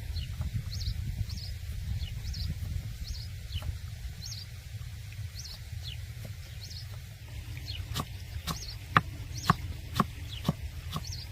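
A bird chirping over and over, a short high call about every two-thirds of a second, over a low steady rumble. About two-thirds of the way in, a run of sharp knocks starts, roughly two a second, louder than the chirps.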